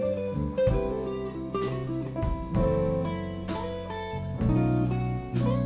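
Live blues-rock band playing an instrumental passage: a Telecaster-style electric guitar plays lead lines with sustained and bent notes over electric bass and a drum kit keeping a steady beat with cymbal hits.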